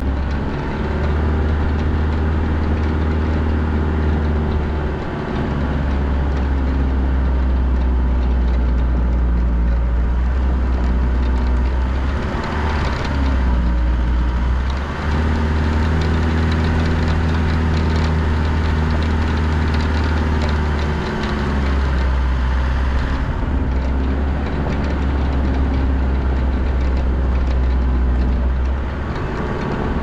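A four-wheel drive's engine running at low revs as it crawls down a steep dirt track, heard from inside the cab as a steady low drone with tyre and body noise over the gravel. The drone dips briefly a few times.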